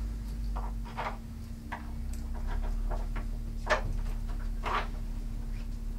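A few scattered light knocks and bumps as a hardwood bed frame's rails and posts are handled, the sharpest a little past halfway, over a steady low hum.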